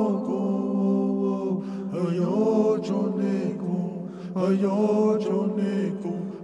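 Chanted vocal music: voices singing slow phrases over a steady low drone, with new phrases coming in about two seconds and four seconds in.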